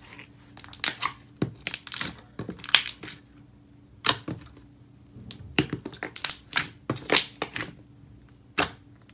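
Thick, glossy slime being poked, pressed and squeezed by hand, giving off irregular sharp clicks and pops in bunches as air pockets in it burst.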